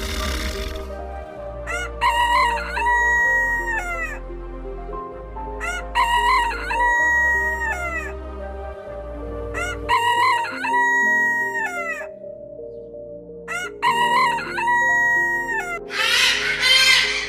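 Rooster crowing four times, about four seconds apart, each crow lasting about two seconds, over background music. A shorter, rougher call comes near the end.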